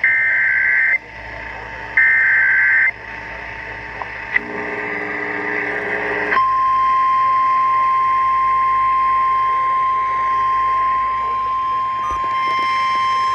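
Emergency Alert System SAME header: two one-second bursts of warbling data tones, a second apart. After a short buzz, a steady single-pitch NOAA Weather Radio warning alarm tone begins about six seconds in and holds, signalling a severe thunderstorm warning.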